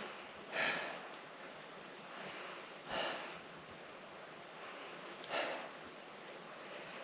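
A hiker breathing hard: three loud, breathy exhales about two and a half seconds apart, with quieter breaths and a faint hiss between them.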